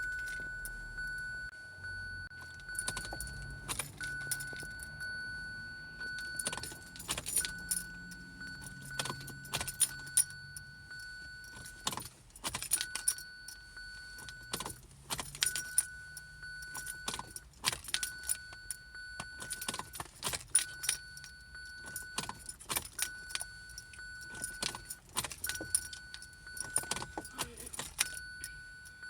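A 2017 Kia Sorento that won't start, its key turned: a steady high electronic warning tone sounds in long stretches, broken every two to three seconds, over bursts of sharp rapid clicking.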